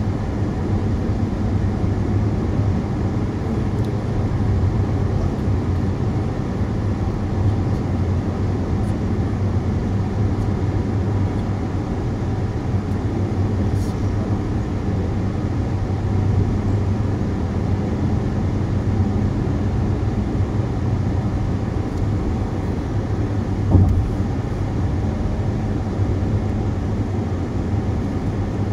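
A car driving on the road: steady engine and tyre noise with a low hum, and one brief knock near the end.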